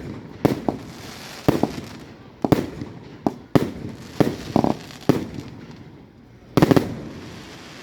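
Fireworks display: a rapid, irregular series of sharp bangs from bursting aerial shells, about a dozen in all, echoing briefly, with the loudest cluster of bangs near the end.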